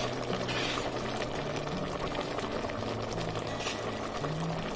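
A metal pot of mustard greens and cabbage for sarson ka saag boiling in water, with a steady bubbling.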